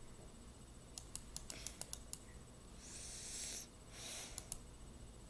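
Clicks on a laptop's keys or trackpad: a quick run of about seven sharp clicks, then, after a short breathy hiss, two more clicks near the end.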